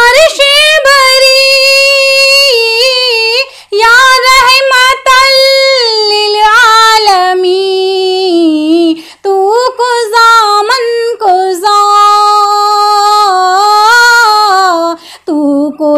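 A woman singing an Urdu naat (devotional song in praise of the Prophet) solo, drawing out long wavering, ornamented notes on the refrain, with brief pauses for breath between phrases.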